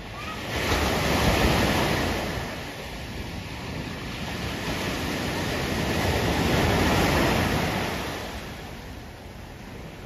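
Black Sea surf breaking on a sandy beach and washing up the shore in foam, in two swells: one about a second in and a longer one around six to seven seconds.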